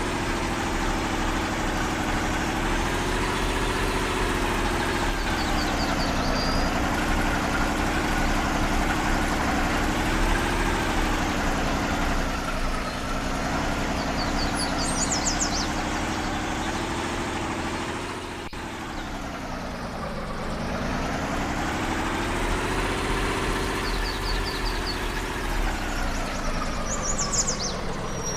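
Off-road vehicle engine running, its pitch rising and falling with the throttle. It drops lowest about two-thirds of the way through, then picks up again.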